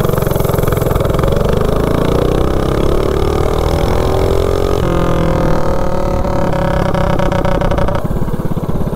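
Single-cylinder Duromax 208cc minibike engine with a VM22 carburetor and header pipe, pulling hard under full throttle. Its pitch climbs as the bike gains speed, steps about halfway through and climbs again, then the note drops back near the end.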